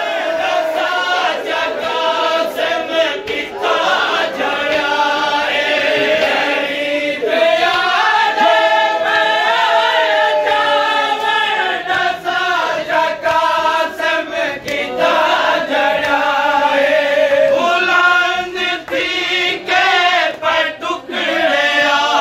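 A noha, a Shia mourning lament, sung unaccompanied by a lead reciter with a crowd of mourners chanting along, over the slaps of hands beating on chests (matam).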